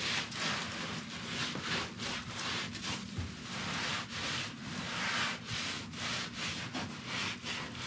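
Damp sponge scrubbing freshly grouted hexagon mosaic tiles in repeated swishing strokes, about one or two a second: wiping the excess grout off the tile faces.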